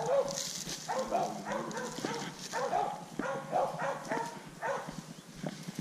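Hog-hunting dogs barking over and over, about two barks a second.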